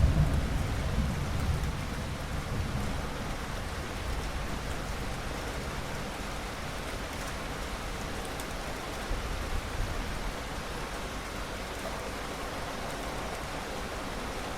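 Steady rain falling, with the last of a thunder rumble dying away in the first two seconds.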